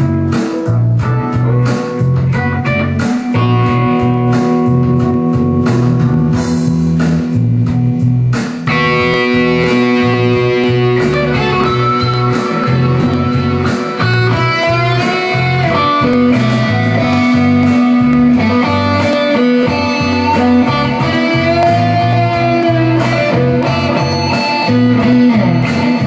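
Stratocaster-style electric guitar playing the blues: choppy rhythm playing at first, then, about a third of the way in, a lead line of sustained notes with string bends over a steady low bass line.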